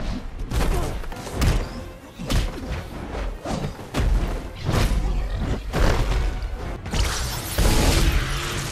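Action-film battle soundtrack: music under a rapid series of heavy thuds, booms and crashes over a low rumble, then a longer rush of noise about seven seconds in.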